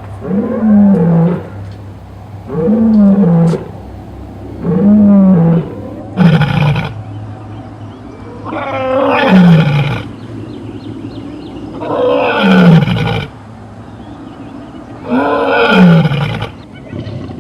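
Lion roaring in a bout of about seven calls, each falling in pitch. The first four are short, about a second each and a couple of seconds apart; the last three are longer.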